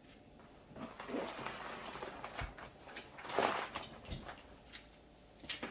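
Rustling and bumping as a portable car fridge is lowered into its insulated fabric carrying case, with the loudest swish about three and a half seconds in and a click near the end.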